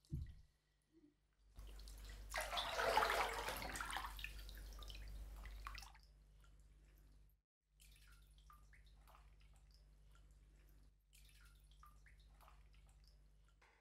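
Bathwater splashing as it is scooped and poured in a bathtub, loudest for a couple of seconds before fading out. Light scattered drips follow. A soft knock sounds right at the start.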